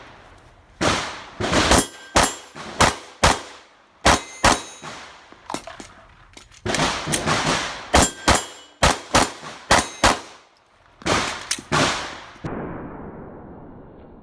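Glock 19 9mm pistol fired in rapid strings of shots, with a metal sign target ringing from hits. The shots come in irregular clusters of two to four, and a long fading tail follows the last ones near the end.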